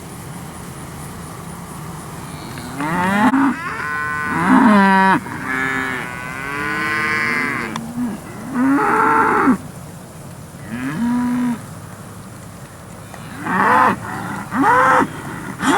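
Beef calves mooing, a string of about half a dozen calls from several animals, some overlapping, starting about three seconds in; one call around the middle is long and drawn out.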